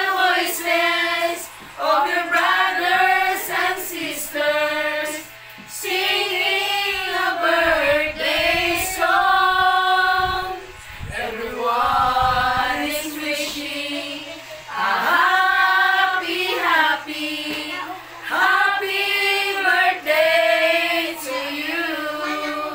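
A small group of voices, mostly women, singing a song together in phrases with short breaks between lines.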